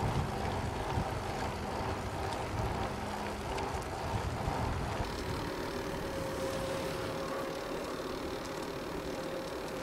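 Bicycle riding on a paved path: steady tyre noise on the asphalt with wind on the microphone. The low rumble eases about halfway through, and a faint steady tone then runs under the noise.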